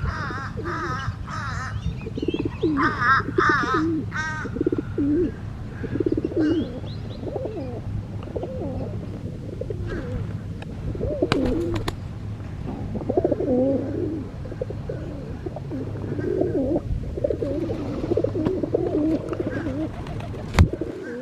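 Doves cooing again and again, with other birds chirping and trilling in quick runs in the first few seconds, over a steady low hum. A sharp click near the end.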